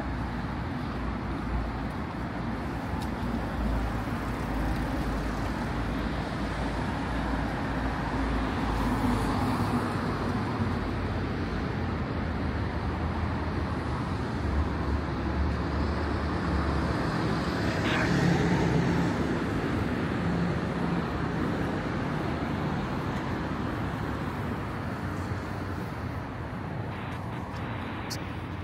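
Road traffic: motor vehicles running past with a steady rumble of engines and tyres, loudest about two-thirds of the way through.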